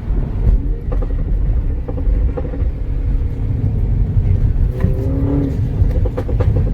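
Mini Cooper engine and exhaust running on the move under a heavy low rumble, with several short sharp exhaust pops scattered through.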